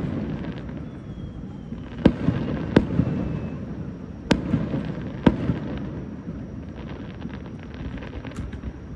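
Aerial firework shells bursting: four sharp bangs spaced over the first five or six seconds with a rolling rumble between them, then a run of small crackles near the end.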